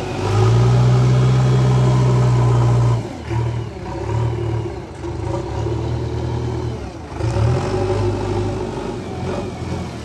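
JCB backhoe loader's diesel engine revving under load as the front bucket scoops and lifts soil. It is held high and steady for the first three seconds, then rises and falls, with another surge about seven seconds in.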